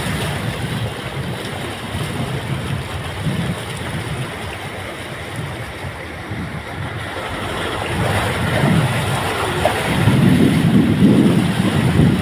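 A car wading through floodwater on a road: the water churns and splashes against its body and wheels. Wind buffets the microphone with a low rumble, heavier in the last few seconds.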